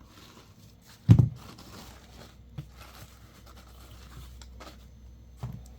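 Phones being handled: a dull thump about a second in, then faint rustling and a few light clicks.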